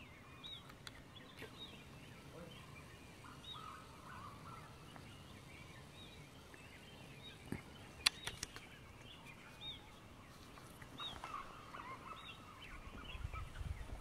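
Several birds calling at dawn: many short, high chirps repeated over and over. A few sharp clicks a little past the middle are the loudest sounds, and a low rumble starts near the end.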